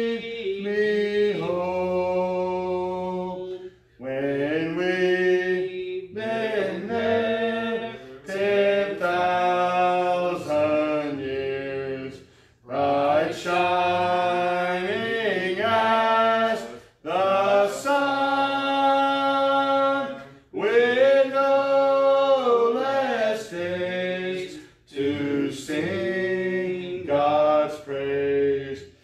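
A man singing a hymn alone and unaccompanied, in long held phrases with short breaks for breath between them.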